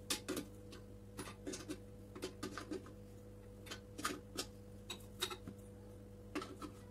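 Irregular small clicks and metallic taps of hand tools against a stainless steel stove top and its burner fittings, as pliers grip and turn a burner's gas pipe fitting.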